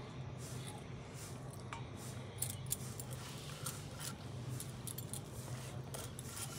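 Hands crumbling homemade khoya on a flat stone slab: soft rubbing with scattered light clinks of the bangles on the wrists, more of them in the second half, over a low steady hum.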